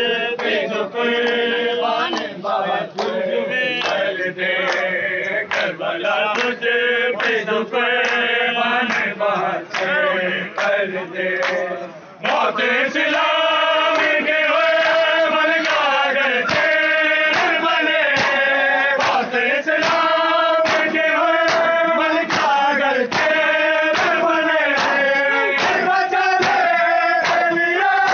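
Men chanting a noha, a Muharram lament, in unison to the steady beat of matam, hands striking chests in time. About twelve seconds in the chanting breaks off briefly, then comes back louder.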